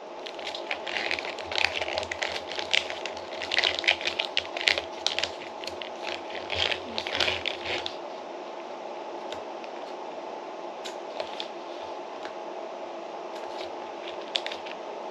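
Plastic pouch of aloe vera crinkling and a spoon clicking as aloe is scooped out into a bowl of yogurt, busy for about eight seconds and then only occasional clicks. A steady low hum runs underneath.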